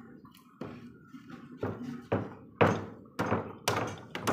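Wooden knocks and thunks from pieces of a mahogany door frame being handled and fitted together, about seven irregular impacts with the loudest a little past halfway.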